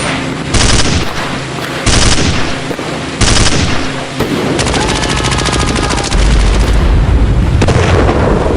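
Machine-gun fire in a war sound effect: three short bursts about a second and a half apart, then a long continuous burst of rapid fire from about four seconds in, with a heavy low rumble in its second half.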